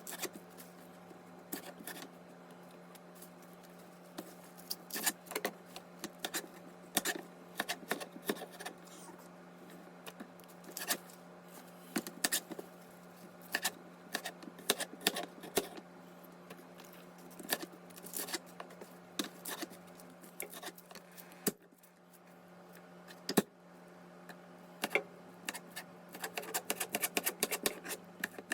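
Irregular sharp clicks and snaps of food preparation, with a loud single snap about 23 seconds in and a quicker run of clicks near the end, over a steady low hum.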